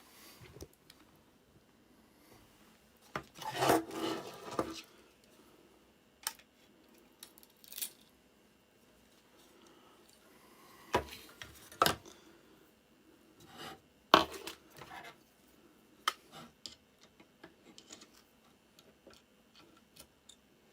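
Scattered small clicks, taps and scraping of hand tools on a circuit board as a desoldered capacitor is worked loose from its holes, with a longer spell of scraping about four seconds in.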